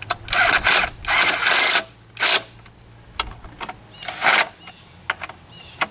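Porter-Cable cordless power driver run in several short trigger bursts with clicks between, snugging down the alternator mounting bolts on a 6.0 Super Duty.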